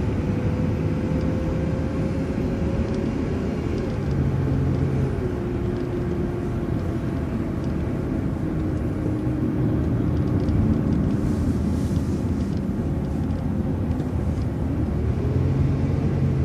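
City transit bus under way: steady engine and road rumble with a thin whine that drops in pitch about four seconds in and rises again near the end as the bus changes speed.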